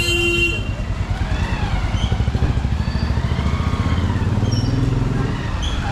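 Street traffic of motorcycles and cars passing with engines running. A short horn honk sounds right at the start, and an engine rises in pitch near the end.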